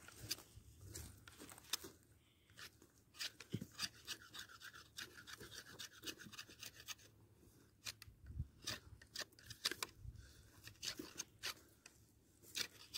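A knife blade scraping bark off a dry wooden branch in repeated short strokes with occasional clicks; the bark is dry and comes off only slowly.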